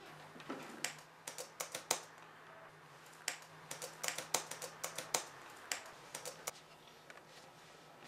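Typing on a computer keyboard: short, irregular bursts of keystrokes.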